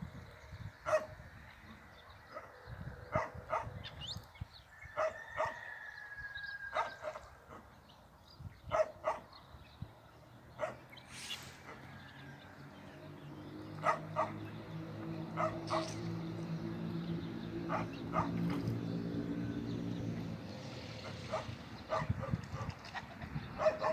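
A dog barking repeatedly in short single and double barks. From about halfway, a low steady droning hum grows louder beneath them.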